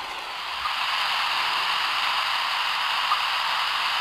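Radio-telemetry receiver hissing with static from its speaker, a little louder under a second in, with a couple of faint short blips about two and a half seconds apart: the weak pulses of the rattlesnake's radio transmitter coming through.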